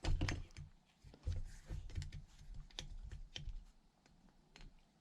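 Light, irregular clicks and taps of small metal engine parts being handled, with a few soft low knocks, going quiet for a moment near the end.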